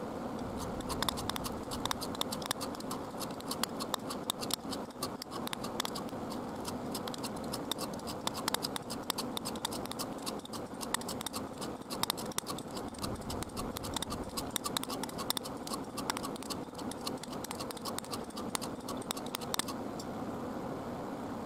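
Rapid, irregular clicking and scratching from hand work on metal engine parts, over a steady low hum. The clicking stops about two seconds before the end.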